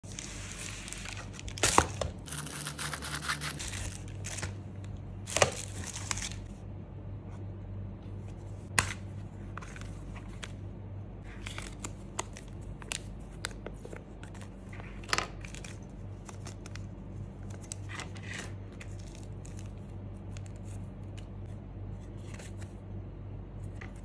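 Unboxing by hand: a padded plastic mailer is torn open in the first few seconds, with long ripping sounds. Then clear plastic packaging bags crinkle and small clicks and taps come as a hard case and its contents are handled. A steady low hum sits underneath.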